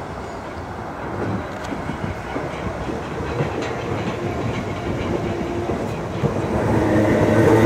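Class 317 and Class 319 electric multiple units coupled together running through the platform. The wheels rumble over the rails with occasional clicks at the joints, growing steadily louder as the carriages come alongside.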